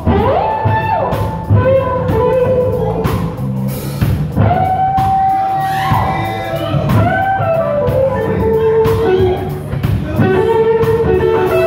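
A live blues band playing: electric guitar and drum kit, with long held notes that bend in pitch.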